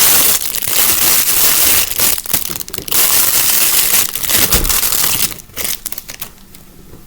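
Plastic packaging crinkling and rustling loudly as a toy is unwrapped by hand; it drops to a few soft crackles after about five seconds.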